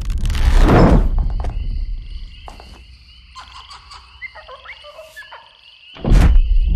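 Two loud booms about six seconds apart, the second starting with a sharp crack. Between them, a faint steady high chirring with a few short chirps and clicks.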